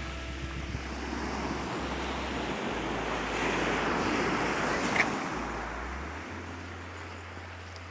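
Waves breaking and washing up a shingle beach: a hiss that swells to a peak about halfway through and then dies away, with a sharp click about five seconds in and a low wind rumble beneath.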